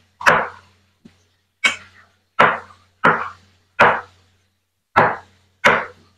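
Kitchen knife chopping cucumber on a wooden cutting board: about seven separate chops, each a sharp knock of the blade on the wood, at an uneven pace of roughly one every second or less.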